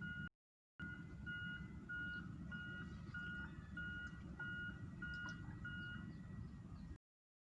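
A run of short electronic beeps, about two a second, over a steady low rumble; the beeping stops about six seconds in.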